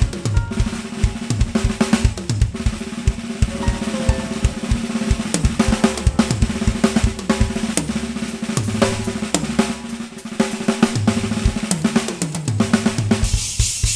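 Band music driven by a busy drum kit (snare, bass drum and hi-hat hits) over sustained low pitched notes, with a cymbal crash swelling near the end.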